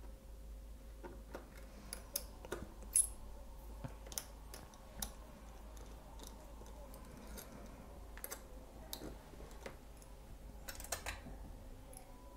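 Light, irregular clicks and taps of a precision screwdriver and tiny screws as the screws are fitted back into a laptop battery, with a few sharper ticks about three seconds in and near eleven seconds.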